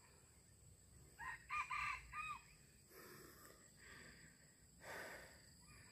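A red junglefowl cock crowing once: a short crow of a few quick linked notes, about a second in.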